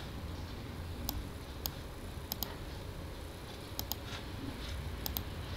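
Computer mouse clicking: a handful of short, sharp clicks, several in quick pairs, over a faint low hum.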